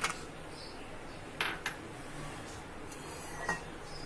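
Soaked, peeled almonds tipped from a bowl into a glass blender jar, clinking against the glass and the blade: two quick clinks about a second and a half in, another near the end.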